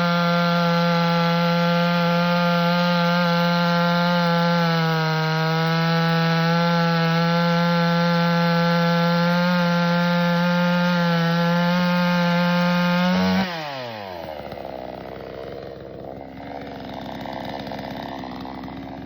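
Pinkway 63cc two-stroke chainsaw running at full throttle with a steady high-pitched note that sags slightly about five seconds in. About thirteen seconds in the revs fall away sharply and it carries on at a low, rough running sound.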